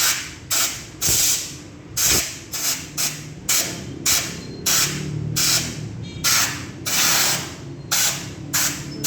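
Short repeated blasts of compressed air from an air blow gun, about two a second, blowing dust out of a Honda Click scooter's air filter housing.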